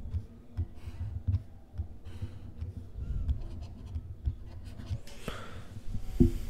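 Stylus tapping and scratching on a writing tablet as table lines and letters are drawn: a run of soft low taps and small ticks, with one louder knock near the end.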